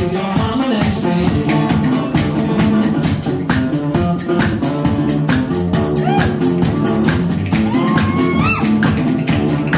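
Live instrumental blues-folk passage: a resonator guitar and fiddle playing over a steady foot-played kick-drum beat, with sliding notes rising around the middle and again near the end.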